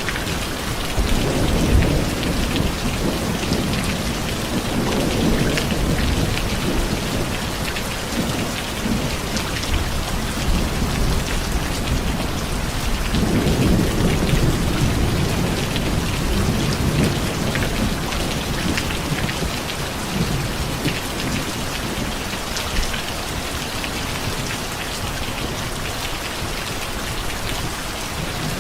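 Steady heavy rain hissing, with low rolling rumbles of thunder, one about a second in and a longer one around halfway.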